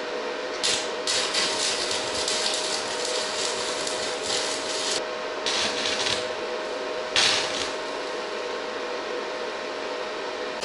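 Stick (MMA) arc welding with an inverter welder, crackling and sizzling in several bursts as the luggage rack is tack-welded to a steel frame: a short burst, a long one of about four seconds, then two shorter ones. A faint steady tone runs underneath.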